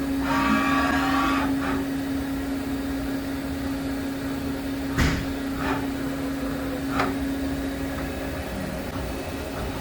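Daewoo DMV4020 CNC vertical machining centre running with a steady hum. A brief higher-pitched whir comes about half a second in, and sharp clicks about five and seven seconds in.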